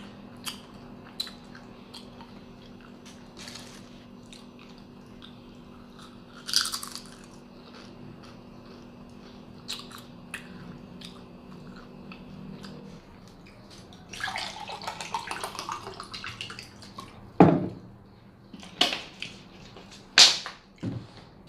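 Eating crisp paprika fried banana chips close to the microphone: scattered small crunches and chewing, a stretch of rustling about two-thirds of the way through, and a few louder sharp crunches near the end.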